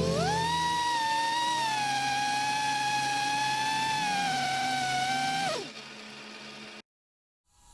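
Small 2.5-inch FPV quadcopter's motors and D63 props whining: the pitch rises as it throttles up about half a second in, holds steady with a slight waver, then drops away about five and a half seconds in. The tail of guitar music fades out at the start.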